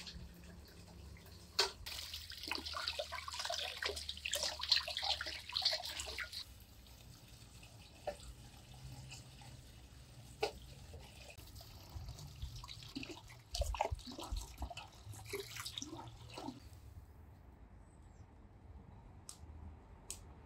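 Water running and splashing for about five seconds, as from a tap over something being rinsed, followed by scattered light knocks and a brief clatter.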